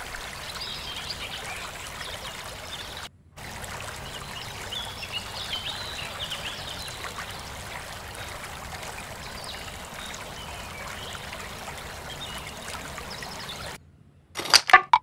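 Water trickling steadily, with small birds chirping now and then. The sound drops out briefly about three seconds in, and a few sudden loud bumps come near the end.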